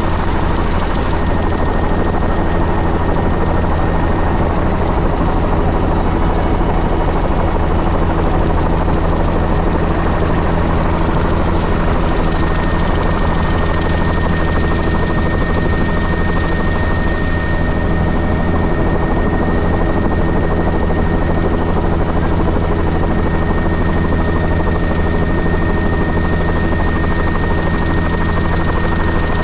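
Helicopter in steady cruise heard from inside the cabin: a loud, constant low drone from the engine and rotor, with steady rushing noise over it.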